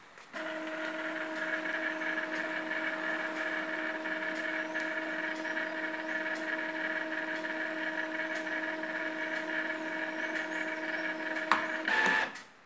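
Epson L3210 ink tank printer running its print-head cleaning cycle: a steady motor whine from the cleaning station pumping ink through the head into the waste ink pad. It starts just after the beginning, shifts briefly louder near the end, then stops.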